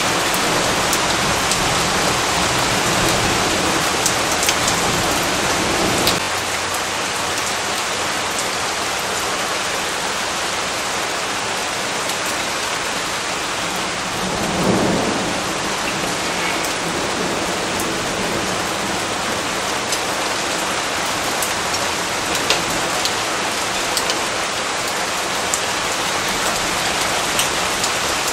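Steady rain falling, a dense even hiss with scattered sharper drop ticks. A low thunder rumble underlies the first six seconds and stops abruptly, and another short rumble swells about halfway through.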